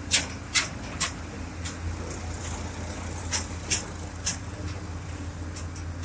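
Diesel engines of a wheeled excavator and a farm tractor running with a steady low hum, with irregular sharp clacks over it: three in the first second and a few more about three to four seconds in.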